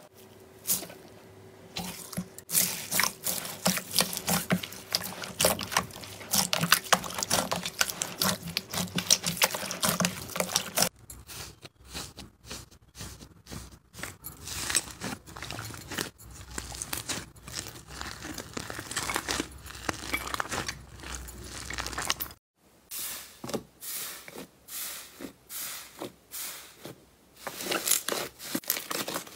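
Slime squished, pressed and kneaded by hand: a dense run of sticky crackles and small pops, changing abruptly twice as one batch of slime gives way to another.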